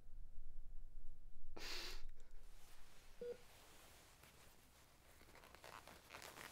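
Quiet room tone with a low hum, broken about a second and a half in by one short, sharp sniff from a crying man, then faint rustling.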